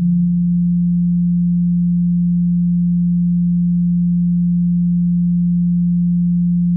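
A single low electronic tone, close to a pure sine wave, held steady at one pitch as a sustained note in an electronic music track.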